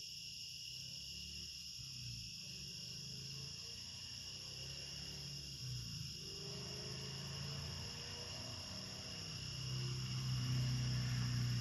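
Crickets chirring steadily in several high, unbroken tones, over a low rumble that swells and becomes louder near the end.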